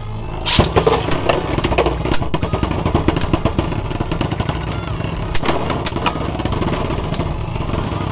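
3D-printed Beyblade tops spinning and clashing in a plastic stadium: a sharp hit about half a second in, then a continuous fast rattle of the tops grinding and knocking against each other and the stadium walls.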